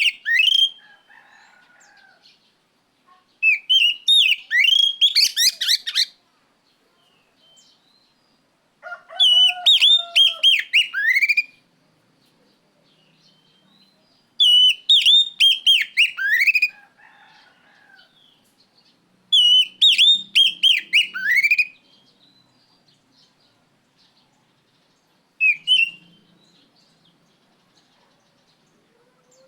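Oriental magpie-robin (kacer) singing loud, clear whistled phrases. Each phrase is a quick run of falling whistles lasting two to three seconds, repeated about every five seconds with short pauses between.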